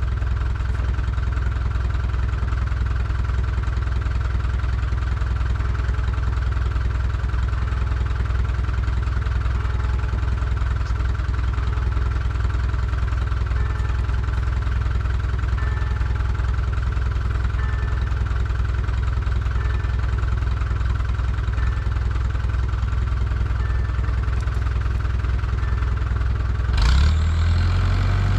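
Tractor diesel engine idling steadily. Near the end it revs up briefly and settles at a somewhat higher, louder speed.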